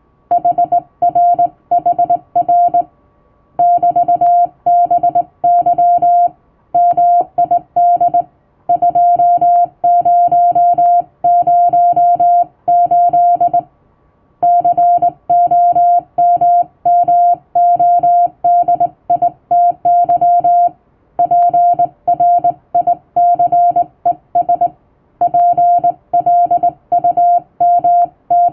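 Hand-sent Morse code in English plain text: one steady mid-pitched tone keyed on and off in dots and dashes, with short pauses between words.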